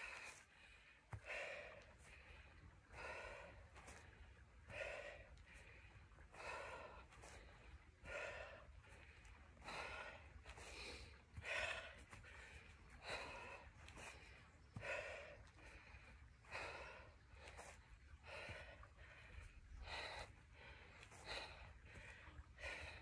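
A woman breathing hard during exercise: a faint, puffing exhale about every second and a half to two seconds, in time with each forward-and-back lunge.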